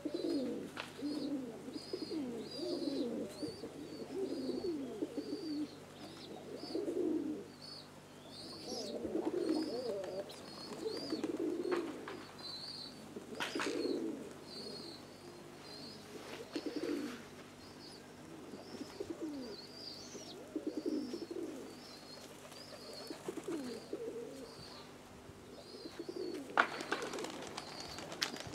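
Domestic pigeons cooing over and over in a flock, low warbling calls overlapping one another, with high short chirps above them and a sharp clatter near the end.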